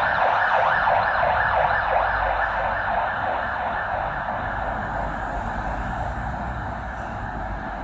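A siren, growing fainter over a few seconds, over a low rumble of traffic.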